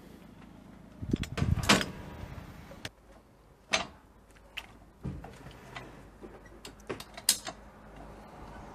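A high-lift farm jack being worked by hand under a 4x4's front bumper, its ratchet pins clacking against the steel bar as the handle is pumped: a burst of clanks about a second in, then single sharp metallic clicks every half second to a second.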